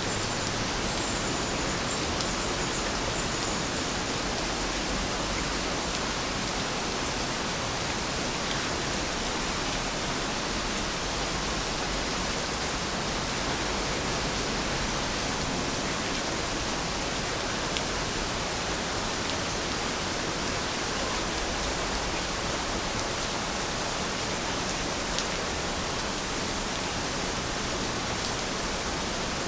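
Steady rain falling: an even, continuous hiss with a few faint ticks of single drops.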